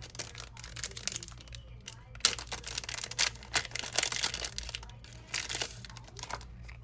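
Crinkling and tearing with sharp little clicks as a thin plastic film or adhesive is worked by hand during an iPhone 12 battery replacement, busiest in the middle stretch and again briefly near the end.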